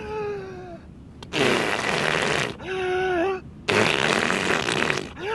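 Loud raspberries blown with the mouth against a bare chest: two long spluttering blows, each over a second, mock CPR. Between them come short wailing vocal cries.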